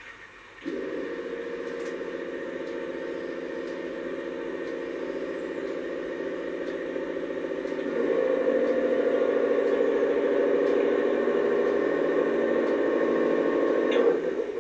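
Massoth sound module in a garden-railway model diesel locomotive playing a diesel engine run through its small loudspeaker. The engine sound cuts in about a second in, gets louder about eight seconds in, and stops suddenly just before the end.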